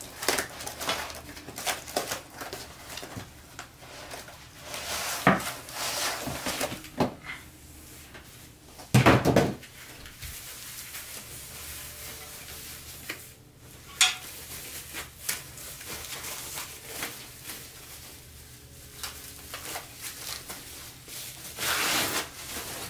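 Clanks, knocks and rattles of metal desk-frame parts being handled and fitted together, with a louder clunk about nine seconds in.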